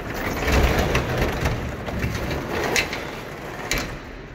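Loading-dock door being raised by hand, a continuous rattling rumble with a few sharp clanks, easing off near the end.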